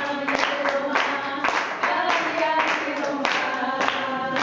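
Voices singing to a rhythmic beat of hand claps, about one clap every half second or so.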